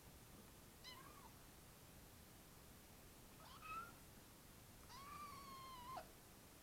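Five-week-old kitten meowing three times: two short meows, then a longer one of about a second that drops off at the end.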